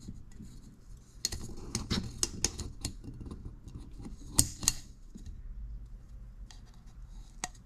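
Irregular light clicks and taps of a plastic oil filter housing cap being handled while its rubber gasket is fitted. A dense run of clicks, then a pause, and one more click near the end.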